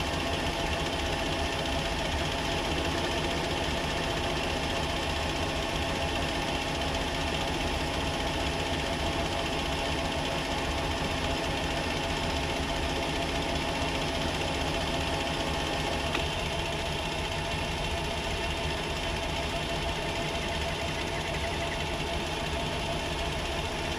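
Myford metal lathe running steadily, turning down the threaded end of a shaft in an interrupted cut.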